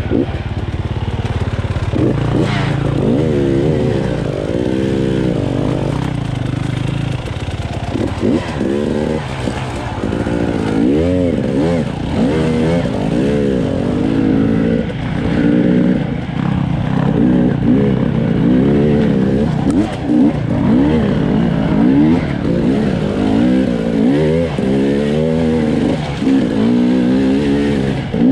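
Motorcycle engine revving up and down while riding, its pitch rising and falling every second or two as the throttle is opened and closed.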